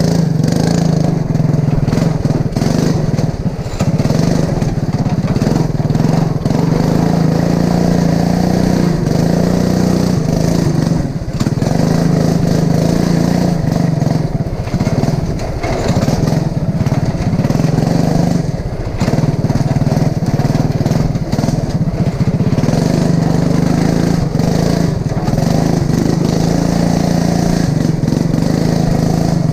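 Racing lawn mower's engine running hard at a steady, high speed, with brief drops in revs a few times.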